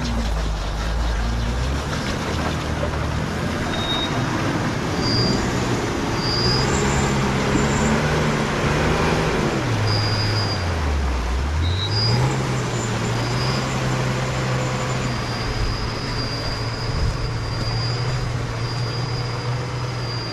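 Hägglunds Bv206 tracked carrier's engine running under load as it drives through swamp mud. The engine note dips sharply and comes back up about eleven seconds in, then holds steady.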